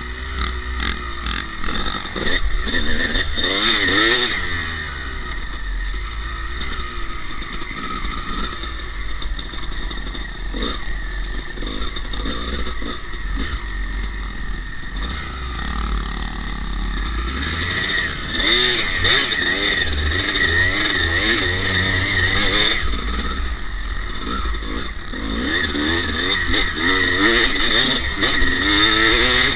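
Kawasaki KX250 dirt bike engine being ridden, revving up and falling back in repeated spells, over a steady low rumble of wind on the microphone.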